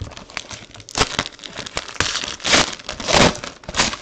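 Clear plastic wrapper of a Panini Court Kings trading-card pack crinkling as hands handle it and pull it open, in several bursts that grow louder in the second half.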